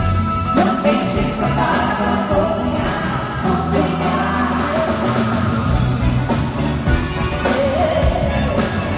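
Live pop band with drums, guitar and keyboards playing loudly while women sing into microphones, amplified in a large concert hall.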